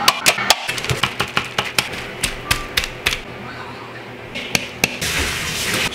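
Rapid, irregular clicks and taps of a metal can and a fork against parchment paper on a wooden counter as canned shredded chicken is knocked out and broken up, ending in a longer scraping rustle.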